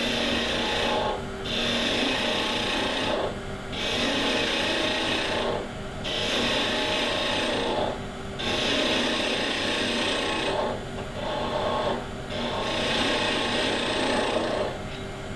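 Skew chisel cutting a spinning mahogany spoon blank on a wood lathe: a steady hissing shaving sound in about seven passes of roughly two seconds each, with short breaks between them, over the low steady hum of the lathe.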